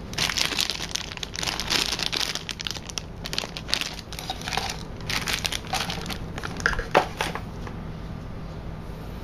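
Clear plastic packaging bag crinkling and rustling in irregular bursts as it is handled, with a sharp tap about seven seconds in. After that only a low steady hum is left.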